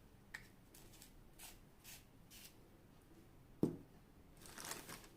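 Soft kitchen handling sounds while ingredients are mixed into raw chicken: a sharp click, scattered short rustles, and one dull knock, the loudest sound, past the middle, then a longer rustle near the end.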